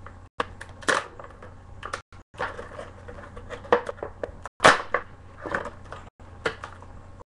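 Retail headphone packaging being pried and pulled apart by hand: an irregular run of crackles, cracks and snaps, the loudest snap a little over halfway through.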